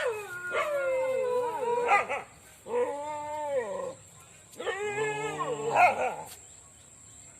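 A dog giving three long, drawn-out howling whines, each one wavering up and down in pitch and lasting one to two seconds, with short gaps between them.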